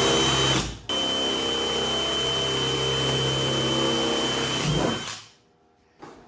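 Cordless drill running steadily, boring a starter hole through a C4 Corvette's removable roof panel. It cuts out briefly just under a second in, runs on, then winds down and stops about five seconds in.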